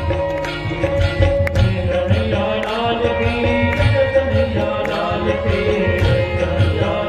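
Indian devotional bhajan music played live through loudspeakers: a melodic line that bends up and down in pitch over a steady low drum beat.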